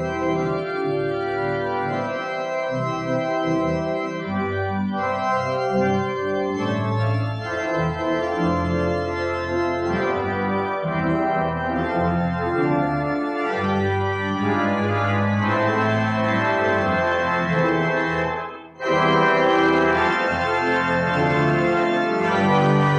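Pipe organ playing slow, sustained chords. It breaks off briefly about three-quarters of the way through, then comes back fuller and brighter.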